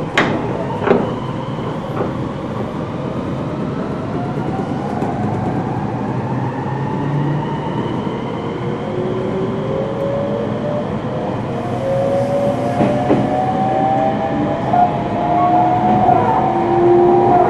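Meitetsu 3100 series electric multiple unit running, its traction motors whining in several tones that climb steadily in pitch as the train accelerates, over a constant wheel-and-rail rumble. There are a couple of sharp knocks near the start.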